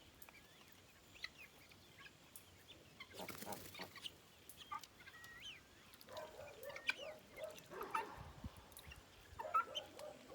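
Chickens clucking, with scattered short calls that grow denser over the last few seconds; a brief rush of noise about three seconds in.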